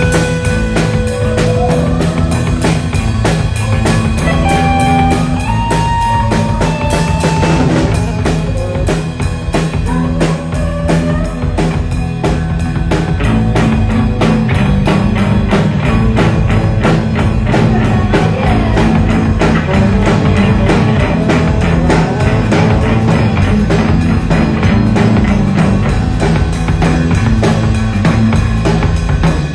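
Live rock band jamming, with a drum kit keeping a fast steady beat under bass and guitar, and a saxophone playing over the top, holding long notes in the first few seconds.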